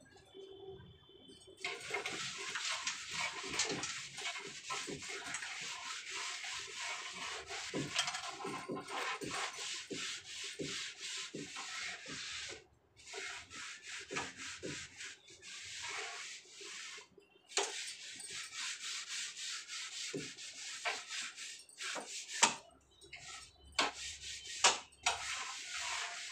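Hand scrubbing a kitchen shelf in quick back-and-forth strokes that rasp. It stops briefly a few times, and a few sharp knocks sound near the end.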